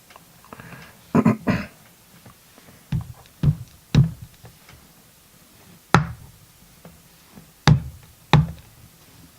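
Eight sharp taps and knocks, spaced irregularly, as the disassembled Yale pin-tumbler lock and its parts are handled and set down on the bench.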